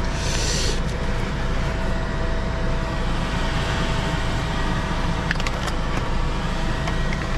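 Iveco Stralis truck's diesel engine idling, heard inside the cab as a steady hum with a low rumble. A short hiss comes just after the start, and a couple of faint clicks follow later.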